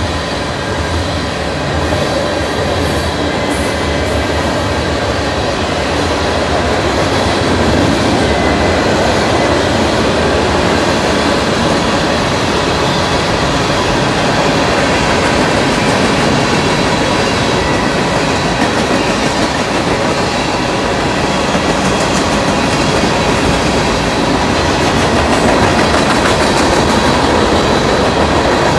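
Freight cars of a Norfolk Southern manifest train rolling past at speed: a loud, steady rumble and clatter of steel wheels on the rails.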